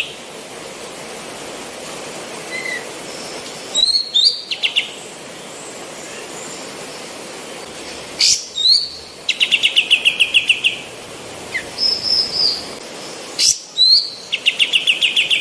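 Female kapas tembak, a bulbul, singing: phrases of sharp, high, quick notes, each followed by a rapid trill of about ten even notes a second lasting over a second. The phrases repeat several times over a steady background hiss.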